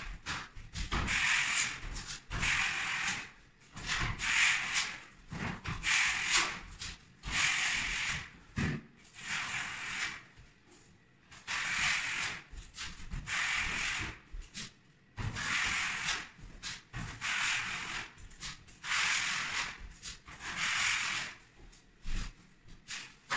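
Paint roller on a telescopic pole rolling thinned joint compound along plasterboard ceiling joints: a rasping stroke every second or so, with short pauses between strokes.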